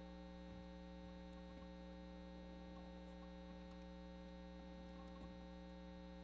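Near silence apart from a steady electrical mains hum in the audio feed.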